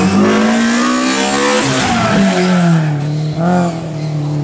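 A BMW E30 rally car's engine running at high revs through a hairpin. Its pitch drops about a second and a half in, blips up again briefly, then holds lower while the car slides, over tyre noise on the asphalt.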